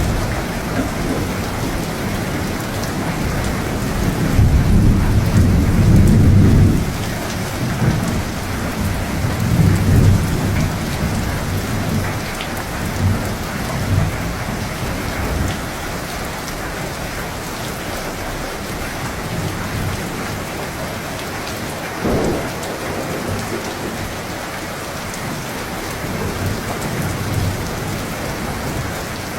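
Thunderstorm: steady heavy rain with rolling thunder, a long rumble building about four seconds in and fading by seven, weaker rumbles after, and a short crack of thunder past the middle.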